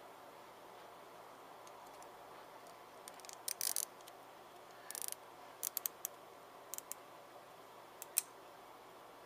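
Nylon cable tie being pulled through its ratchet head in several short spurts of clicking, with a quick run of clicks about five seconds in. Faint room hiss underneath.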